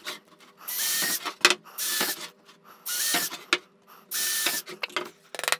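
Cordless drill boring pilot holes through a wooden base in four short bursts, the motor whining up and stopping each time, with small clicks and knocks between the bursts.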